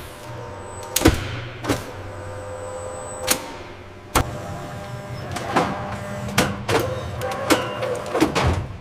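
Factory machinery running with a steady hum, broken by sharp metallic knocks: four single knocks in the first half, then a quick run of clacks and bangs near the end. A thin high whistle sounds over the hum during the first few seconds.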